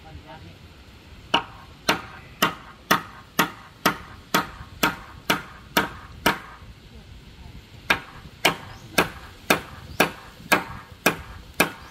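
Steady blows of a hand tool on wood, about two a second: eleven strikes, a short pause, then eight more.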